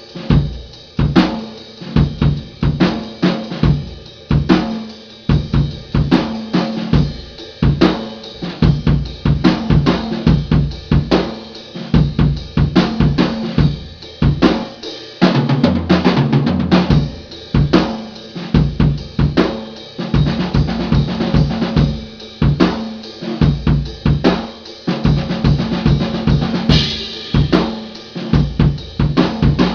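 Drum kit being played: fast strokes on snare and bass drum with hi-hat and cymbals, and a cymbal crash near the end.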